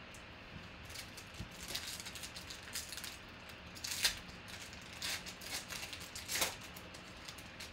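Foil wrapper of a 2019 Panini Rookies and Stars football card pack crinkling and tearing open in a string of short rips, the loudest about four seconds in and again a couple of seconds later.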